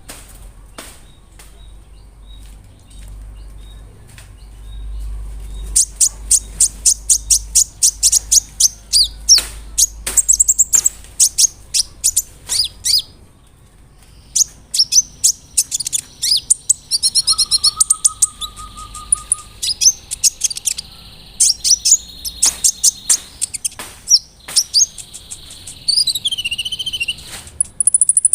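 Kolibri ninja sunbird singing energetically: long runs of rapid, sharp, very high chirps, then a varied warbling phrase with a brief lower steady whistle and quick descending trills near the end.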